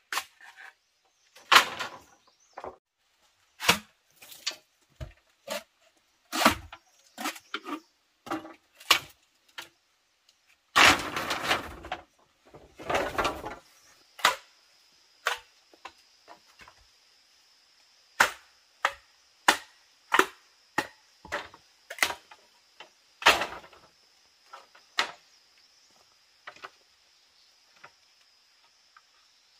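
Sharp knocks of a tool striking wood, coming irregularly about one or two a second, with two longer, rougher stretches about eleven and thirteen seconds in.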